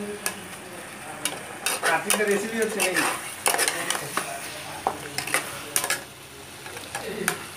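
A metal spatula stirring and scraping around a metal pot, with irregular scrapes and knocks against its sides, while egg chilli in a thick sauce sizzles underneath.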